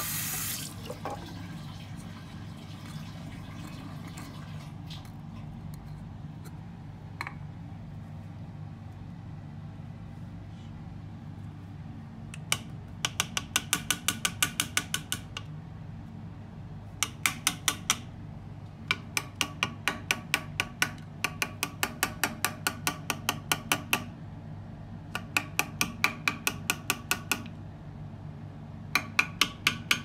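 Tap water running into a washbasin stops about half a second in. From about twelve seconds in come repeated runs of quick, sharp taps, about five a second: the Xiaomi SWDK KC101 Pro's pleated filter is knocked against the basin to shake the trapped dust out.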